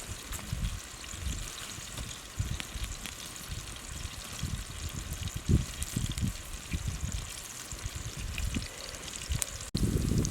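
Running water with a steady hiss, mixed with irregular low thumps and rumbles; the sound changes abruptly near the end.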